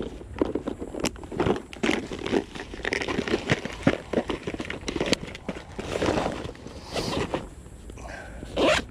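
A clear plastic tackle box of fishing jigs being handled and pushed into a fabric backpack: irregular plastic clicks and knocks mixed with rustling of the bag, the loudest rustle near the end.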